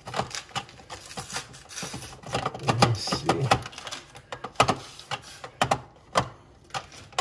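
Plastic housing of a GE Enbrighten under-cabinet LED light clicking, knocking and scraping against its mounting screws and the cabinet underside as it is fitted over the screws: a string of irregular clicks.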